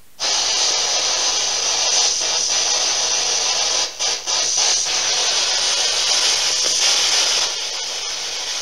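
Spirit box (SB11) sweeping through radio stations: loud, steady static hiss that switches on suddenly, with brief dropouts about four seconds in.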